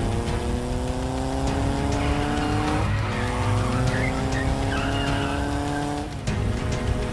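Sport motorcycle engine accelerating hard. Its pitch climbs steadily, drops at a gear change about three seconds in, climbs again and drops at another shift about six seconds in.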